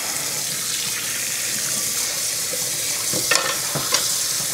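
Hot water running from a kitchen tap into a cast-iron skillet in the sink and splashing, rinsing the grease off browned ground beef. There are a couple of short knocks a little over three and about four seconds in.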